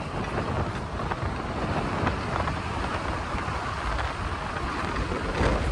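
Steady noise of a moving vehicle on the road, with wind on the microphone.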